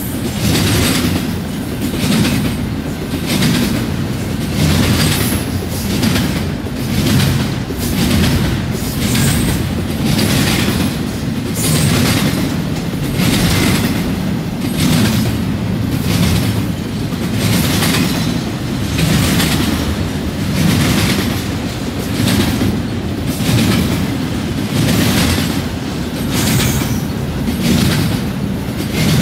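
Double-stack intermodal freight cars rolling past at trackside: a steady low rumble of wheels on rail with a rhythmic clickety-clack about once a second.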